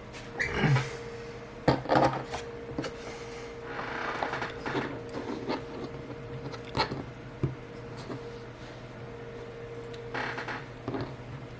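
Small clicks, taps and rubbing of hands handling a phone and small repair parts on a work surface, over a steady low electrical hum.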